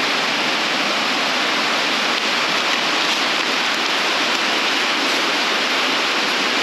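Rain falling on the roof, heard from inside the garage as a steady, loud hiss.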